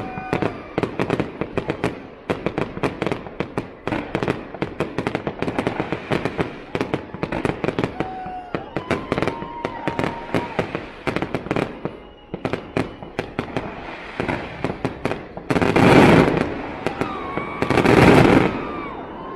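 Fireworks display: a rapid, dense run of bangs and crackles from shells bursting. Near the end come two louder, longer bursts of crackling, each about a second long.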